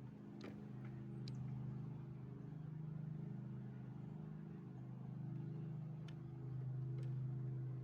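A steady low motor-like hum that swells slightly twice, with a few faint light clicks over it.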